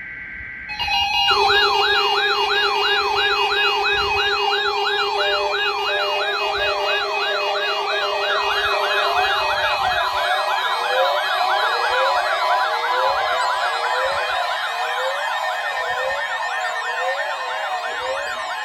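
NOAA Weather Radio weekly alarm test: a steady alarm tone, joined about a second in by several weather alert receivers sounding their warbling siren alarms together, which slowly drift out of step with one another.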